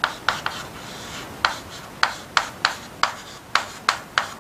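Chalk writing on a chalkboard: a string of short, sharp taps and scratches, one for each stroke of handwriting, about a dozen of them, with a pause of about a second near the start.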